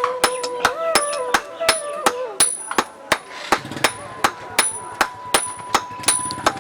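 Hand hammer beating hot iron on an anvil in a steady rhythm, about three sharp ringing blows a second, as a blacksmith forges a weeder blade. A low hum joins about halfway through.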